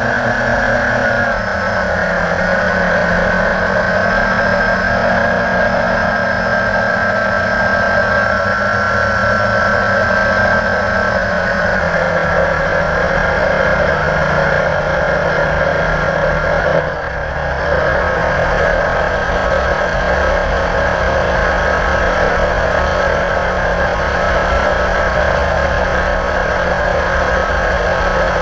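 Blade 350 QX quadcopter's electric motors and propellers whining steadily in flight, heard from the drone's own camera, the pitch shifting slightly, with a brief dip in level a little past the middle.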